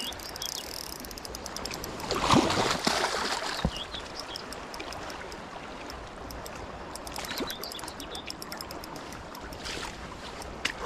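River water running, with louder splashing about two seconds in and again around seven seconds in, from a large hooked trout being drawn to the landing net.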